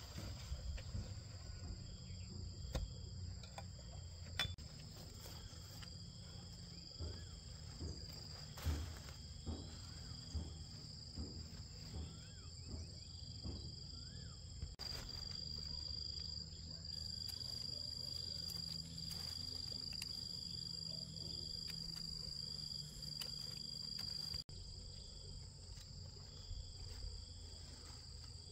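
Insects calling: a steady high-pitched drone runs throughout while a second insect chirps in short repeated pulses. Low rustling and a few knocks sound in the first part.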